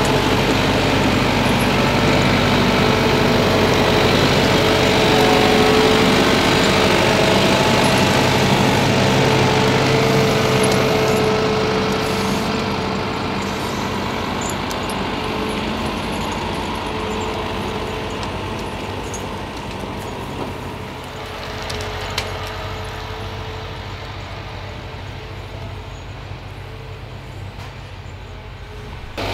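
Ponsse Elk forwarder's diesel engine running steadily as the log-loaded machine drives past, then fading gradually through the second half as it moves away.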